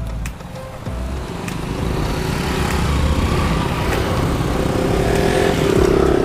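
Street traffic with motorbike engines, growing louder over the first few seconds and staying loud.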